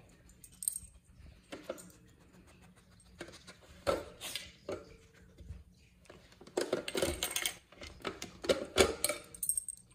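UFO Pro puppy feeder's plastic dome and tray clattering and clacking as a dog noses and shoves it to work food pieces out. Irregular knocks, a cluster about four seconds in and a busier run in the second half, loudest near the end.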